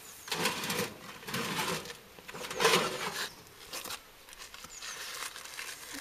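Gloved hand handling the insulated crucible box inside a microwave oven: three bursts of scraping and rustling about a second apart, the third the loudest, then softer scuffs.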